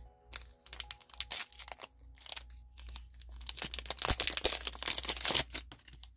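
Foil wrapper of a One Piece Card Game booster pack crinkling and tearing open by hand, in a run of irregular crackles. It is densest and loudest between about four and five and a half seconds in.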